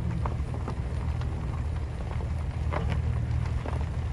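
Car engine running, heard from inside the cabin as a steady low hum, with a few faint clicks.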